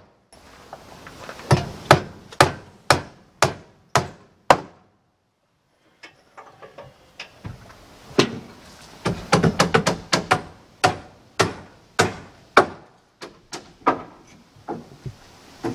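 Hammer blows on wood framing, about two strikes a second. The hammering breaks off for a second or so around five seconds in, comes back with a quick flurry of lighter taps around nine seconds, and then returns to a steady beat.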